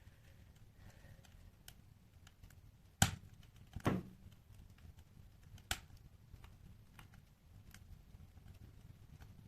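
Wood fire burning in a fireplace: scattered soft crackles over a faint low rumble. Sharp pops come about three seconds in, again just before four seconds, and once more near six seconds.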